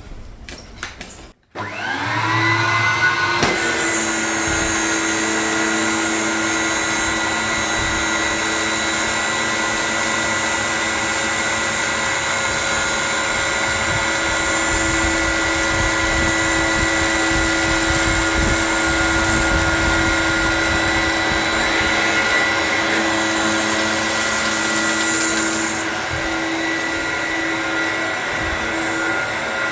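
Dyson DC01 bagless upright vacuum cleaner switched on about a second and a half in. Its 1100-watt motor spins up with a rising whine over about two seconds, then runs steadily with a high whine, a little quieter near the end.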